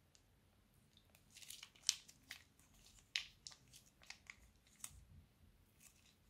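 Plastic piping bag crinkling and crackling as it is squeezed empty and scrunched up by hand: an irregular scatter of sharp crackles, the loudest about two and three seconds in.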